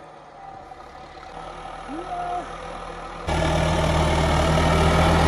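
Tractor's diesel engine running steadily as it pushes snow with a front plough blade. It is faint and distant at first, then loud and close from about three seconds in.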